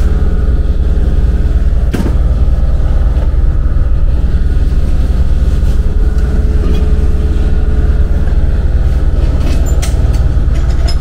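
A loud, steady low rumble, with one sharp knock about two seconds in.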